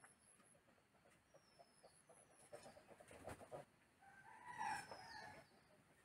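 A rooster crows once, faintly, about four seconds in: a call of a second and a half with several tones together. Over it are short, high, falling chirps of small birds, and a little before the crow there is a brief soft rustling.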